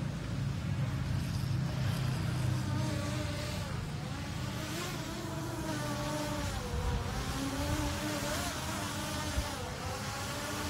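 Multilaser Falcon 4K GPS quadcopter drone flying overhead, its propellers giving a buzzing whine whose pitch wavers up and down as the motors adjust. A low rumble lies underneath for the first four seconds or so.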